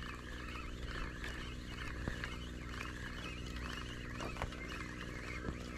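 Penn Battle III 3000 spinning reel being cranked steadily to retrieve a lure: a low, even running sound with scattered small clicks.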